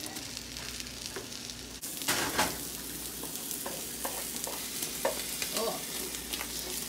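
Beaten eggs and sausage frying in a nonstick pan, sizzling, while a slotted spatula scrapes through the setting egg with scattered taps against the pan. The sizzle gets louder about two seconds in.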